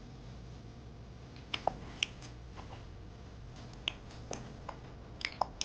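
A dozen or so light, sharp clicks and taps at irregular intervals, bunched around a second and a half in and again near the end, over a faint steady room hum.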